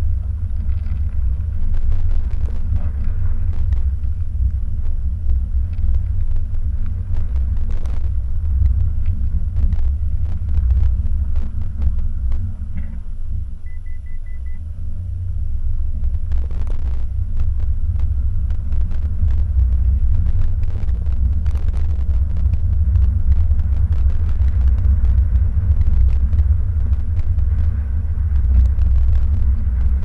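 Car driving over a snow-covered road, heard from inside the cabin: a steady low rumble of road and tyre noise, with scattered small clicks and crackles.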